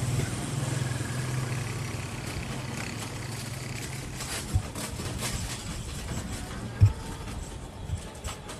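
A motor vehicle's engine hum fades away over the first few seconds as it passes, leaving steady road and wind noise. A few short low thumps come through, the loudest about two-thirds of the way in.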